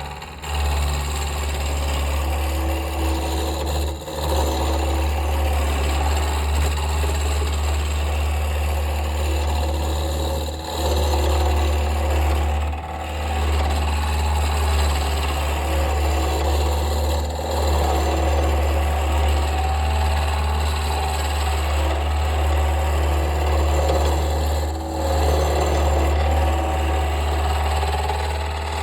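Wood lathe running with a steady motor hum while a roughing gouge cuts a spinning square wood blank down toward a cylinder, a rough scraping that comes in as the lathe starts and drops briefly a few times as the tool is lifted off.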